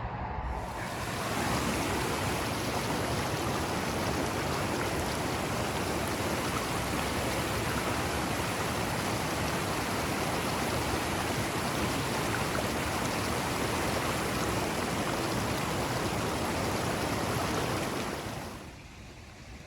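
Steady, loud rushing of blizzard wind, starting about a second in and dying away near the end.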